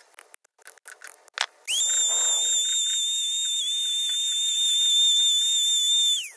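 Small high-speed power tool spinning up, running with a steady high-pitched whine for about four and a half seconds, then winding down quickly. Before it come light clicks and scraping and a sharp knock.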